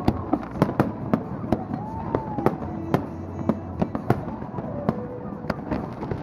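Fireworks display: an irregular run of sharp bangs and pops, about three a second, over a steady low rumble.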